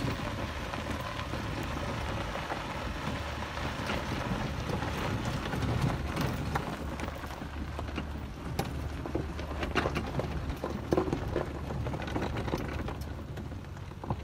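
Car rolling slowly along a dirt and gravel road: tyres crunching over loose gravel with scattered sharp clicks of stones, over a low steady engine hum.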